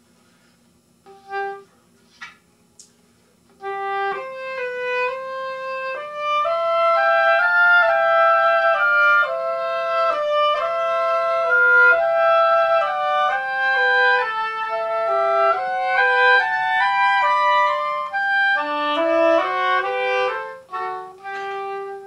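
Two oboes playing a melodic passage together in two parts, starting about three and a half seconds in after a single short note.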